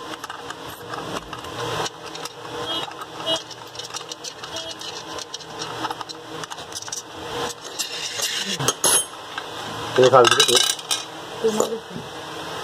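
Small metal clicks, clinks and scrapes as the vent tube nut is unscrewed from an aluminium pressure cooker lid and the lid is turned over and handled.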